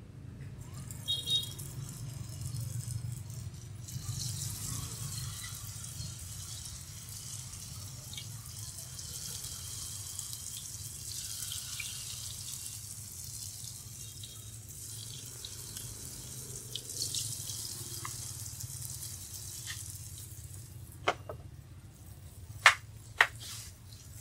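Batter-coated breadfruit strips sizzling in hot oil in a frying pan, a steady hiss, with a low steady hum underneath. Near the end come three sharp clicks, the loudest sounds, in about two seconds.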